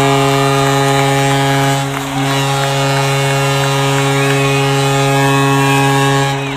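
Hockey arena goal horn, a ship-style horn sounded in one long, steady blast with a brief dip about two seconds in, signalling a Tampa Bay Lightning goal.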